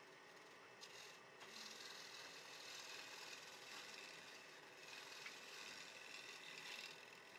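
Faint, steady scratchy hiss of a sanding pad rubbing against a she oak bowl spinning on a wood lathe, swelling and easing a little as the pressure changes.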